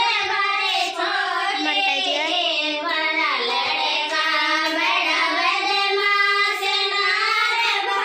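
High-pitched singing with music, one sung line gliding up and down without a break.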